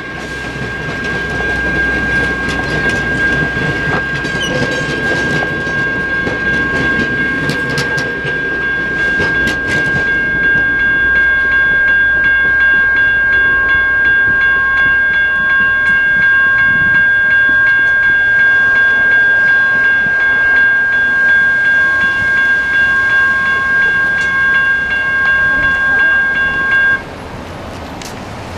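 Crossing signals' General Signals Type 1 electronic bells ringing steadily. Under them, for the first ten seconds or so, the passenger cars of a passing train rumble over the rails with a few sharp clicks. The bells cut off suddenly near the end as the crossing deactivates and the gates begin to rise.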